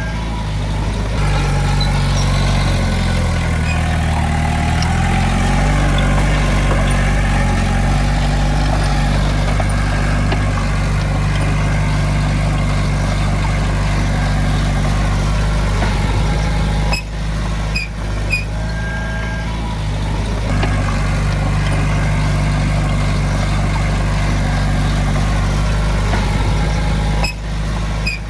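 Heavy-equipment diesel engine running steadily, its pitch shifting as the load changes in the first few seconds. A short beep sounds about two-thirds of the way in.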